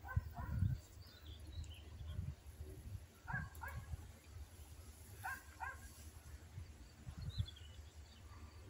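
Animal calls in short pairs, three times a couple of seconds apart, with higher thin chirps in between and a low rumble underneath.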